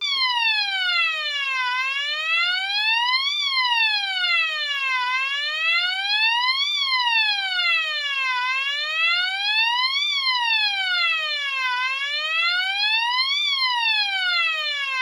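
AE&T T105N electronic fire alarm sounder sounding its tone number 7: a slow wailing siren tone that glides smoothly up and down, rising for about a second and a half and falling for the same, over and over.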